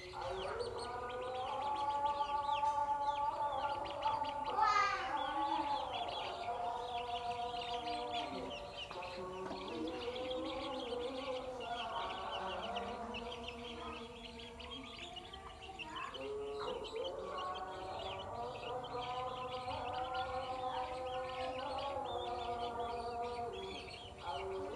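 Baby chicks peeping rapidly and continuously from under a brooding hen, over louder sustained pitched tones in the background.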